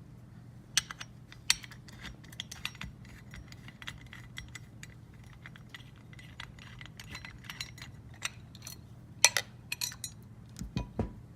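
Irregular small metallic clicks and clinks of hands and tools working a motorcycle turn signal assembly loose, busiest about nine seconds in, over a steady low hum.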